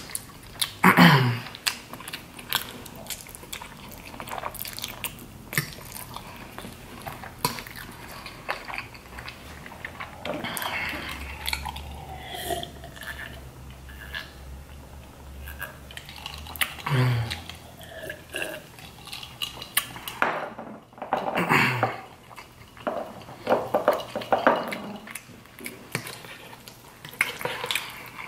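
Close-miked eating of creamy fettuccine alfredo: a fork clicking and scraping on a plate, with chewing and lip smacking. A few short hums that fall in pitch.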